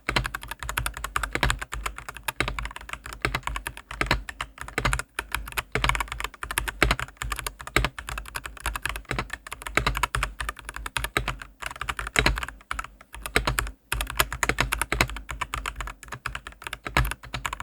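Fast continuous typing on a Dareu A87 mechanical keyboard with stock Dareu Blue Sky linear switches: a rapid run of high-pitched, clacky keystrokes with a few short pauses.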